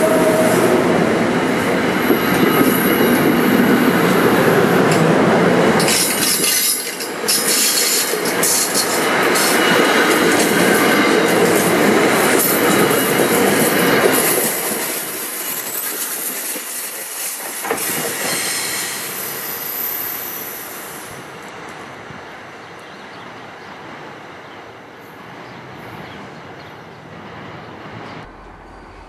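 New Jersey Transit passenger coaches rolling past close by, their wheels clattering over the rails and squealing. The noise starts to die away about halfway through and keeps fading as the train moves off.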